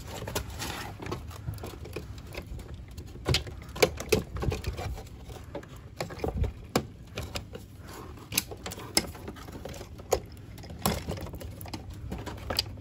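The plastic upper grille of a 2012 Camaro's front bumper cover being pulled out of its plastic retaining clips by hand: irregular clicks, snaps and rattles as the tabs pop loose, with a few louder snaps about three to four seconds in and again near nine and eleven seconds.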